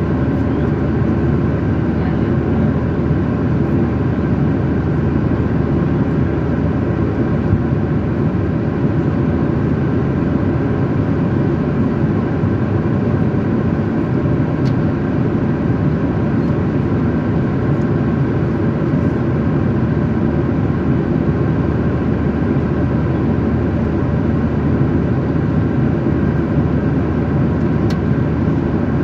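Steady jet engine and airflow noise heard inside an airliner's passenger cabin in flight, a constant low rush with a few faint steady tones above it.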